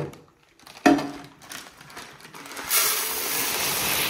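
Whole urad dal grains poured from a plastic bag into a clear plastic storage container, a steady rush of grains starting about two and a half seconds in. A single knock comes about a second in.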